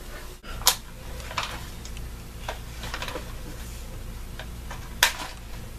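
An AR-15 rifle being handled while its rear takedown pin is pushed out: a few sharp clicks, one about a second in and another near the end, with lighter taps between.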